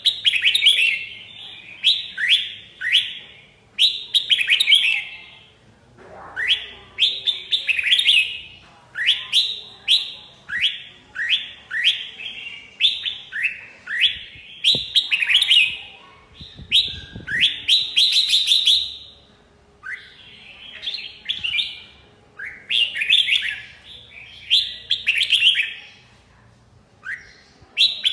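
Red-whiskered bulbul singing, phrase after phrase of quick, bright warbled notes with short pauses between bursts.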